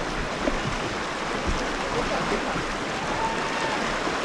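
River water rushing and splashing around a raft, a steady, even noise.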